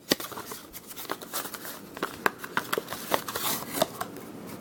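Irregular small clicks and scrapes of a cardboard box of trading cards being opened and the cards handled.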